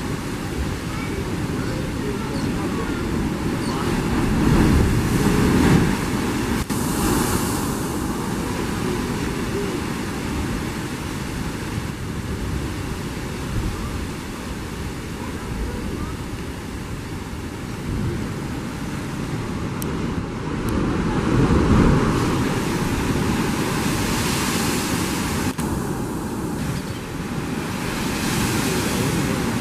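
Heavy ocean surf surging and draining through layered limestone chasms and a blowhole: a steady rushing roar of water that swells louder twice as waves break in.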